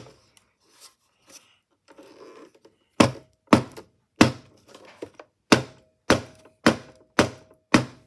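Bell & Howell portable cassette player's case knocked repeatedly against a wooden tabletop to shake loose dirt and grit out of it. A run of sharp thunks, about two a second, starts about three seconds in.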